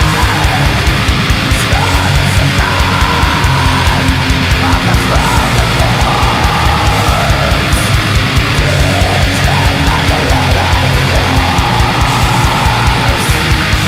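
Heavy metal recording: loud, dense distorted electric guitars over fast, steady drumming.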